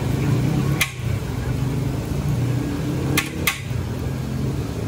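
Sharp metal clinks of cooking utensils at a wok stall: one about a second in, then two close together near three and a half seconds in, over a steady low hum.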